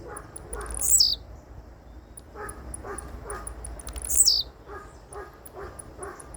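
Birds calling: a loud, high call that falls steeply in pitch sounds twice, about three seconds apart, over quick high chirps and a lower call repeated several times a second.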